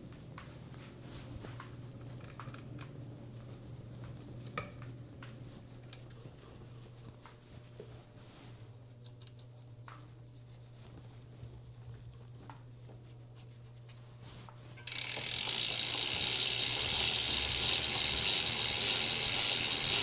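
Faint scattered clicks and rubbing from work on a bicycle drivetrain. About 15 s in, a compressed-air blast starts suddenly: a loud, steady hiss blowing water and grime off the cassette and chain.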